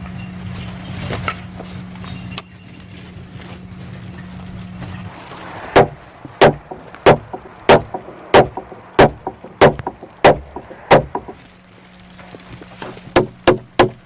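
Hammer blows on wood: about nine evenly spaced strikes at roughly one and a half a second, then after a short pause a quicker run of strikes near the end. Before the hammering starts, a low steady hum fades out about five seconds in.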